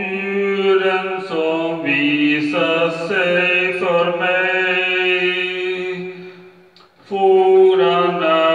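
A man singing a slow Swedish praise song (lovsång) into a handheld microphone, holding long notes and gliding between them, with a short break for breath about seven seconds in.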